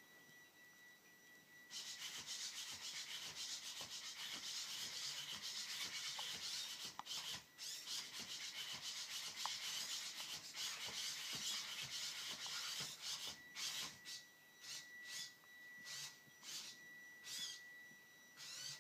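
Dynamixel AX-12 servos of a hexapod robot whirring as the robot moves its legs and body, over a faint steady high whine. The whir starts about two seconds in and runs continuously for about ten seconds, then comes in short separate bursts about twice a second.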